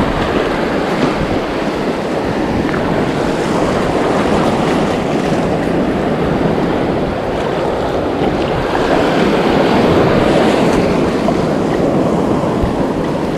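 Steady wash of shallow breaking surf foaming around the wader, with wind rumbling on the microphone.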